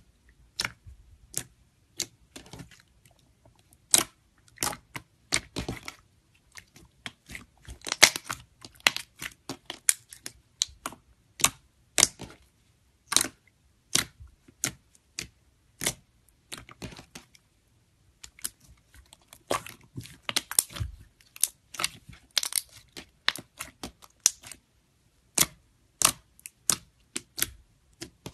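Thick fluffy slime being pressed and poked by fingertips, giving off irregular sharp pops and clicks, some in quick clusters.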